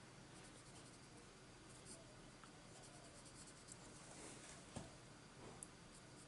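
Very faint scratching of a Prismacolor colored pencil shading on paper in repeated short strokes, with a couple of small ticks about three-quarters of the way through.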